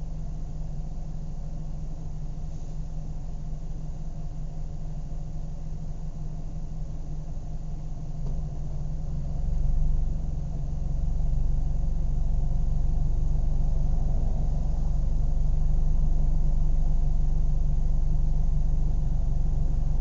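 Car engine idling with a steady low hum. About halfway through it swells briefly, then settles back to an even idle that is a little louder than before.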